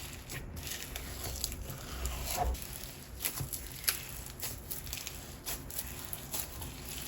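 Black snow fizz perlite slime being squeezed and stretched by hand, giving irregular small crackles and pops with a soft squish.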